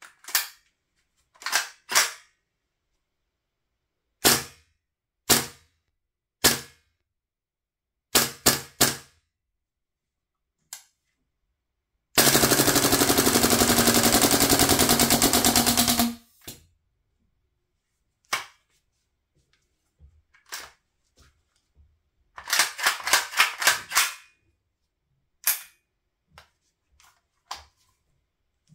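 GHK AKS-74U gas blowback airsoft rifle firing, each shot a sharp crack with the bolt slamming back. It starts with single semi-auto shots, a few of them in quick pairs and triples. Then comes a long full-auto burst of about four seconds, and later a shorter burst.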